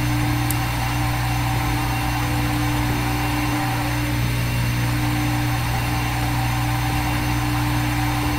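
Simulated sound of a CNC vertical machining centre's spindle running at 1800 rpm while its end mill cuts: a steady machine hum with a few held tones over a noisy whir, played by the CNC simulator app.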